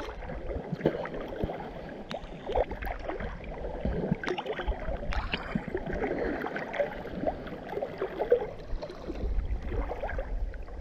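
Sea water sloshing and lapping against a camera held at the water surface, with irregular small splashes and gurgles and a low rumble of water moving over the microphone.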